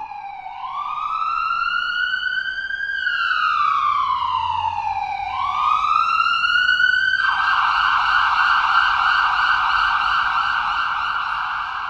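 Siren in a slow wail, its pitch sweeping up and down over a few seconds at a time, then switching about seven seconds in to a rapid warbling yelp.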